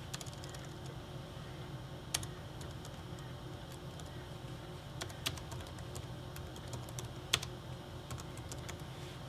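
Typing on a computer keyboard: faint, irregular keystrokes with a few louder clicks, over a low steady hum.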